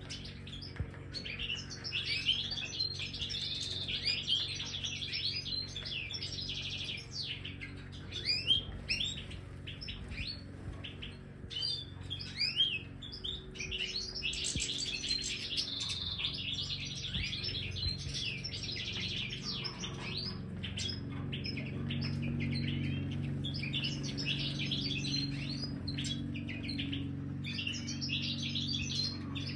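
A flock of European goldfinches twittering, many short, quick, high calls overlapping without a break. A low steady hum runs beneath and grows louder about two-thirds of the way through.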